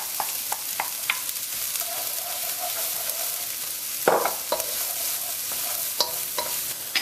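Diced onion and red pepper sizzling steadily in hot oil in a frying pan, stirred with a utensil that clicks and scrapes against the pan, with a louder scrape about four seconds in.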